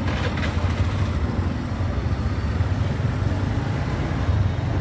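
Steady low rumble of street traffic, with motor vehicle engines running close by.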